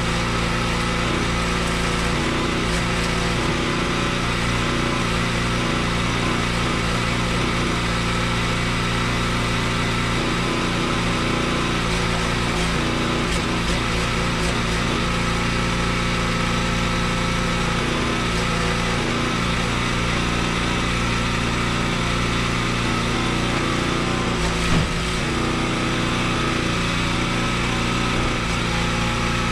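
Small gasoline engine running steadily at an even speed, with one short knock about three quarters of the way through.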